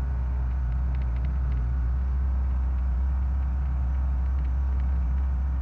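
Heavy equipment's engine running steadily while the machine drives along, heard from the operator's seat as a constant low drone.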